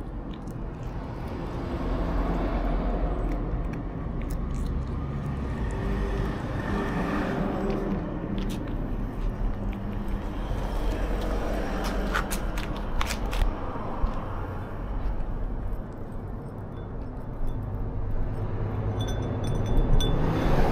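A cat chewing dried sardines (niboshi), with irregular sharp crunches that come thickest in the middle and near the end, over a low steady rumble.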